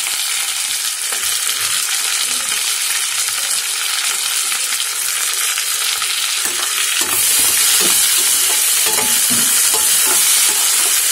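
Curry leaves and chopped onion sizzling in hot oil and ghee in a pan, stirred now and then. The sizzle is a steady hiss that grows louder about seven seconds in.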